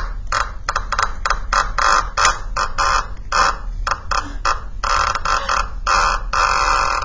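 Cup-and-string noisemaker: a wet sponge pulled in short jerks down a string tied to the bottom of a cup, giving a quick series of croaky creaks, two or three a second, like a rocking chair, amplified by the cup. A longer, drawn-out creak comes near the end.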